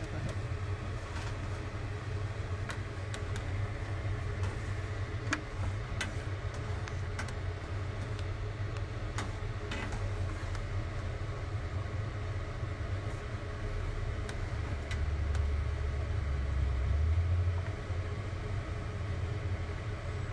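A low steady rumble that swells for a few seconds in the second half, with scattered light clicks of a metal spoon against an aluminium saucepan as the soup is stirred.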